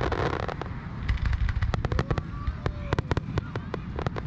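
Aerial fireworks crackling: a dense, irregular run of sharp pops, several a second, over a low rumble.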